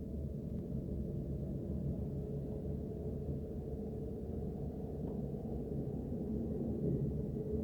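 Dubai Tram running, heard inside the car: a steady low rumble with a faint hum that gets clearer in the second half.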